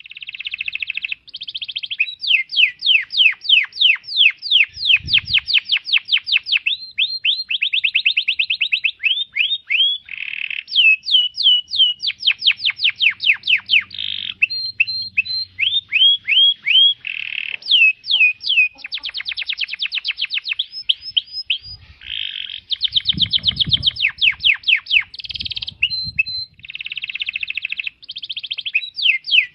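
Domestic canary singing one long, unbroken song of fast high trills and rolls, each run of rapidly repeated notes passing straight into the next.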